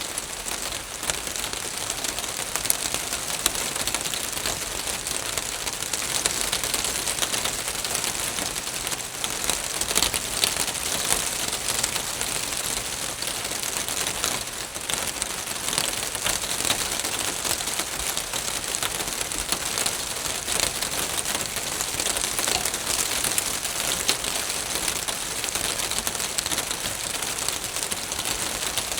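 Steady rain falling on a roof, a dense even patter of many individual drop hits.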